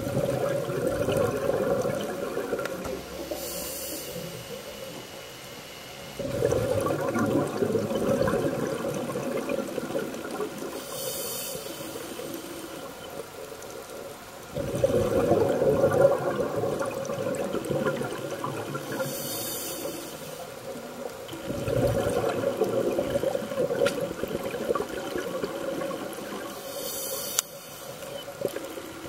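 Scuba diver breathing through a regulator underwater: a long bubbling rush of exhaled air alternates with a short hiss of inhalation, about one breath every seven to eight seconds, four breaths in all.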